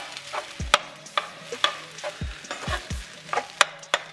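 A spoon knocking and scraping against a pan while rice is stirred and mixed, with irregular knocks two or three times a second over a faint sizzle.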